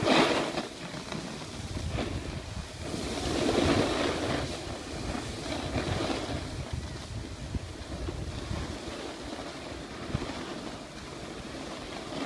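Snowboard sliding and scraping over packed snow, with wind rushing across the phone's microphone; the swishing swells and fades every second or two as the rider turns.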